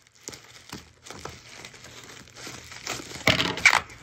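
Plastic-wrapped, taped shipping package crinkling and rustling as it is cut with scissors and pulled at by hand, with a louder burst of crinkling about three seconds in.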